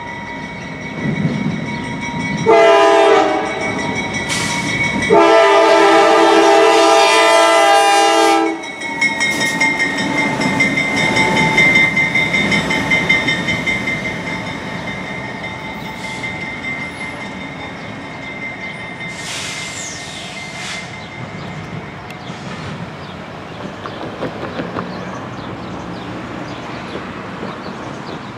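Norfolk Southern GE D9-44CW diesel locomotive (16-cylinder GE 7FDL engine) running light: its air horn sounds a short blast about two seconds in, then a long blast that cuts off after several seconds. The locomotive then rumbles past over the rails and fades into the distance, while a grade-crossing bell rings steadily.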